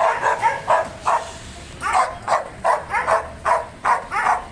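A dog barking aggressively in quick repeated barks, about two or three a second, with a short pause a little after one second in.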